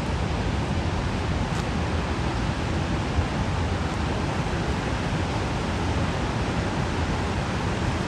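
Gullfoss, a large two-tiered waterfall, rushing steadily: a dense, even noise of heavy falling water with no breaks.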